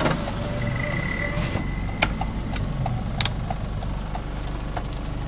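Mazda BT-50's 2.5-litre diesel engine idling steadily, heard from inside the cabin. A thin whine runs for about a second and a half near the start, and there are a few light clicks.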